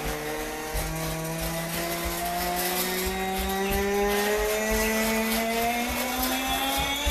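A person's voice droning an imitation of an airplane engine: a steady buzzing hum that climbs slowly in pitch, breaking and starting again about a second in and about halfway through.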